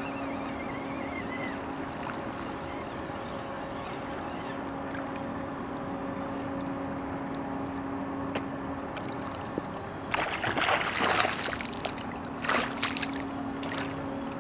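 Steady low hum of a small boat motor over light water lapping. About ten seconds in come loud, ragged splashes as a hooked fish thrashes at the surface beside the boat, then a second shorter burst of splashing.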